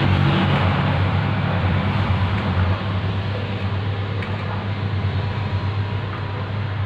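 Steady low mechanical hum with a constant hiss, slightly quieter about three seconds in.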